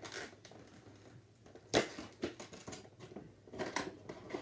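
Cardboard action-figure box with a plastic window being handled and pried open by hand: scattered clicks and crinkles, the sharpest about two seconds in and a cluster of smaller ones near the end.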